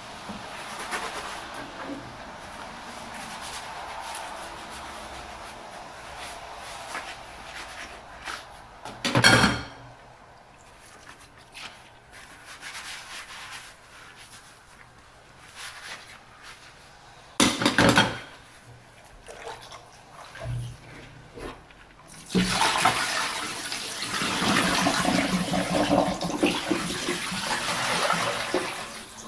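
Dishes being washed by hand at a sink, with water running and splashing. There are two brief loud noises about nine and eighteen seconds in, then a strong stream of tap water runs for the last several seconds.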